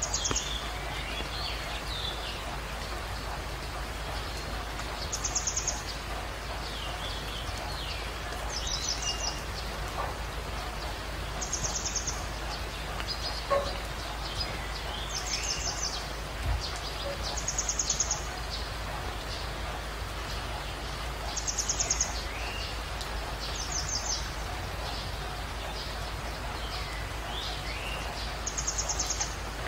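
Birds calling over a steady hiss: a short high trill repeats every three seconds or so, with thinner chirps in between.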